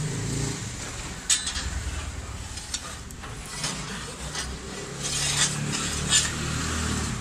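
Metal pizza peel scraping and clinking against the floor of a wood-fired brick oven, with sharp clinks about a second in, near three seconds and about six seconds in, over a steady low hum.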